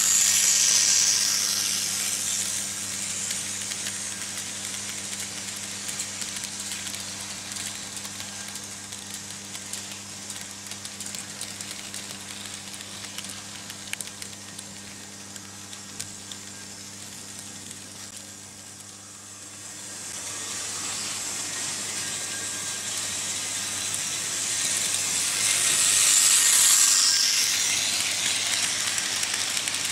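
Märklin H0 model trains rolling over metal M-track: a steady hissing rattle of small wheels on the rails over a low, even electrical hum. It swells as wagons pass close, loudest at the start and again a few seconds before the end, and dips briefly past the middle.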